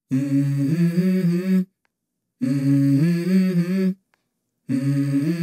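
Background song opening with a voice humming a short melody: three phrases of about a second and a half, each starting low and stepping up in pitch, with short silences between them.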